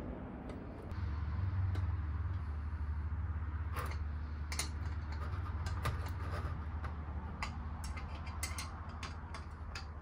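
Small metal mechanism of a typewriter-parts robot clicking and ticking as its winged top fitting is twisted by hand, in an irregular run of sharp clicks from about four seconds in, over a steady low hum.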